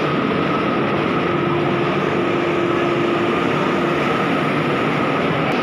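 Steady hum and hiss of a stationary Vande Bharat electric train set, with a thin steady whine and a lower tone that fades out about four seconds in.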